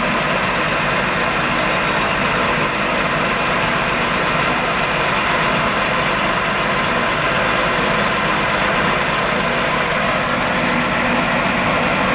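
ENCO 13 x 40 bench lathe running under power, its carriage traversing on the longitudinal power feed. The motor and gear train make a steady, even running noise with no change in speed.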